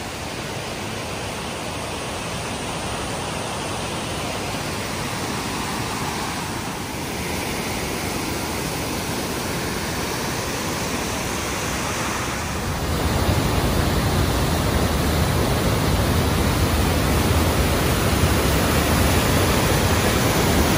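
Waterfall rushing steadily. About 13 seconds in it gets louder, with a deeper rumble underneath.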